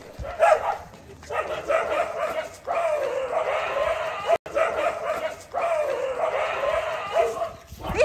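Dogs barking in quick, overlapping runs of barks and yelps: street dogs confronting a German Shepherd.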